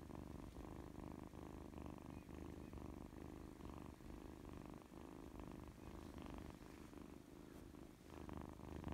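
Scottish Fold kitten purring steadily with its face right against the microphone.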